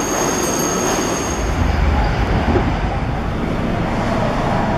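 Subway train running past on the rails, with a thin, steady high whine over the running noise. The whine stops about a second and a half in, and a deeper low rumble of the train takes over.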